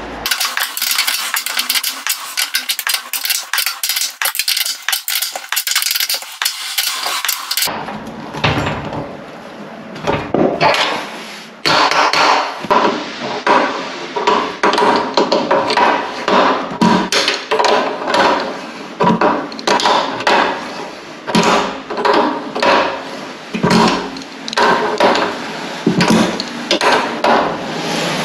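PTFE thread tape crackling as it is pulled off the reel and wound onto a radiator valve tail. About eight seconds in it gives way to an adjustable wrench tightening the union nut of a thermostatic radiator valve, with repeated sharp metallic clinks and ratchety knocks as the wrench is turned and re-seated on the nut.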